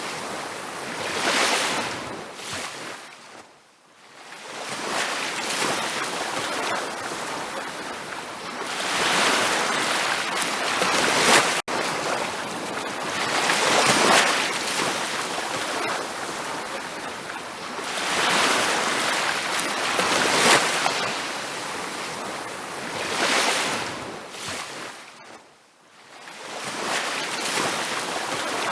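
Ocean waves breaking and washing up a beach, a hiss that swells and ebbs every few seconds. The sound fades almost away twice, a few seconds in and near the end, and drops out for an instant near the middle.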